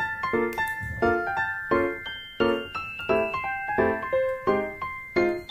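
Background music: a light, bouncy melody of short piano-like keyboard notes in a steady rhythm.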